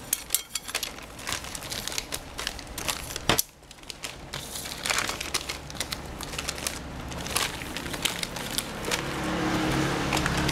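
Plastic and paper packaging of a transmission seal and gasket kit crinkling and rustling as the parts are handled, with one sharp click about a third of the way in.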